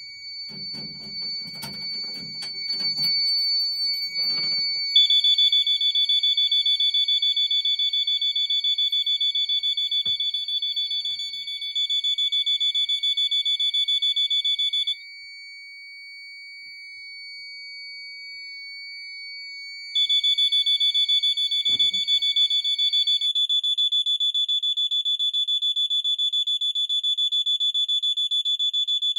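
Weather radio sounding a steady high alert tone. About five seconds in, a small fire alarm horn starts a rapid, buzzing pulsed tone, triggered from the panel by the weather alert. The horn sounds for about ten seconds, stops for about five, then starts again, and the radio's tone ends a few seconds after it resumes. A few knocks and rustles come in the first seconds.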